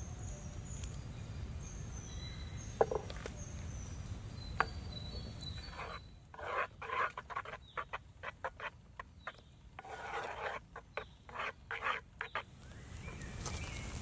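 Birds singing with two sharp knocks in the first few seconds; then, about halfway through, a wooden spoon stirring chocolate cake batter in a cast iron skillet, a quick irregular run of stirring strokes with short gaps. The birdsong returns near the end.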